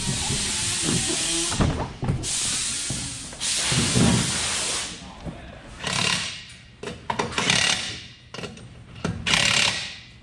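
Cordless drill run in short bursts at a race-car wheel hub, driving the wheel's bolts, after a few seconds of steady loud hiss.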